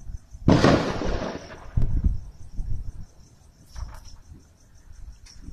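Crickets chirping in an even, rapid pulse, with a loud rushing burst about half a second in that fades over about a second, and a few dull low thumps after it.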